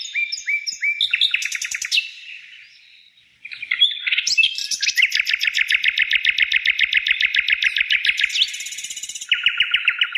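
A small songbird singing fast trills of repeated chirps, about ten notes a second. The song pauses briefly about three seconds in, then resumes with a long trill and a shorter, lower trill near the end.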